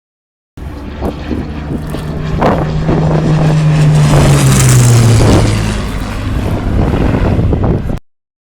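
Hawker Hurricane's Rolls-Royce Merlin V12 engine in a flypast: the engine note grows louder, peaks about halfway through, then drops in pitch as the aircraft passes. The sound stops abruptly near the end.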